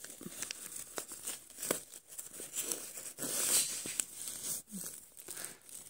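A crinkly soap wrapper and folded clothes rustling as the wrapper is pushed in among them: irregular small crackles and clicks.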